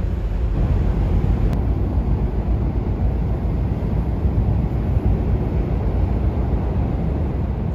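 Steady low rumble on the open deck of a car ferry getting under way: the ship's diesel engines working up for departure, mixed with wind on the microphone.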